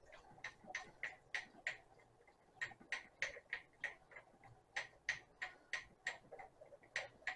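Wire whisk clicking against the inside of a pot in light, irregular ticks, about three a second, as milk is whisked into a thick paste to thin it into soup.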